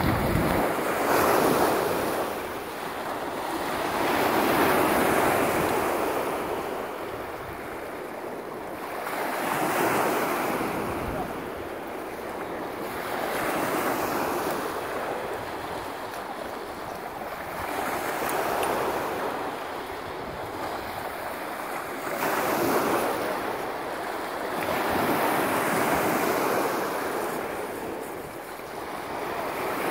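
Small lake waves breaking and washing up the shore, swelling and falling away about every four seconds, with wind on the microphone.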